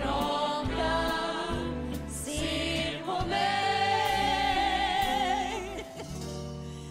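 A woman singing a cabaret song live with a wide vibrato, holding one long note in the middle of the phrase, over an instrumental accompaniment with a stepping bass line.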